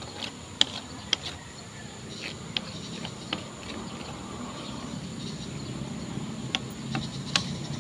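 Outdoor background ambience: a handful of sharp, short clicks or chirps scattered over a steady hiss, with a low hum growing louder in the second half.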